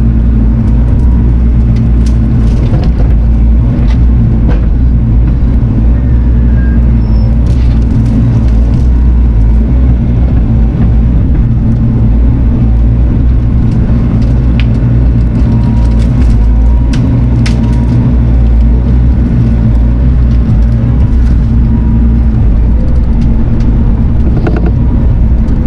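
Diesel engine of compact heavy equipment running steadily at constant speed, with scattered light clicks and knocks over it.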